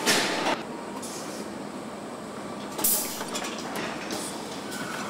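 Assembly-plant floor noise: a steady mechanical din, with a short loud burst of hissing noise at the start and another sharp burst about three seconds in.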